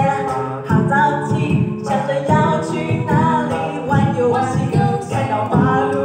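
Voices singing unaccompanied, a cappella, in short phrases that break about every one and a half seconds.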